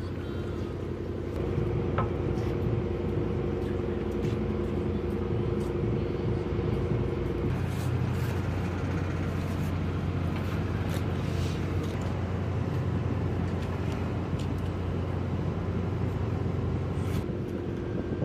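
Steady engine hum with a low drone throughout and a higher pair of tones that cut off about seven seconds in, with a few faint clicks.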